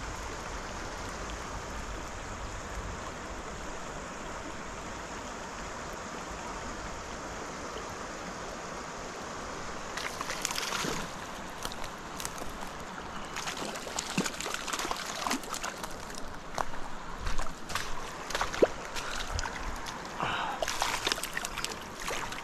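Small mountain creek flowing over a gravel bed, a steady rush and burble of water. From about ten seconds in, irregular sharp clicks and short splashes join the flow.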